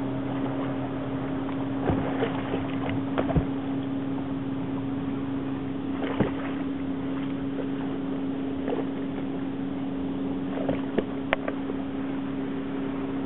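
Boat motor running steadily with a constant hum, with a few short knocks scattered through.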